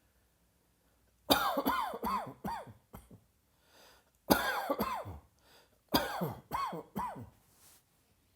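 A person coughing in three fits of four or five quick, voiced coughs each: the first about a second in, the next two about four and six seconds in.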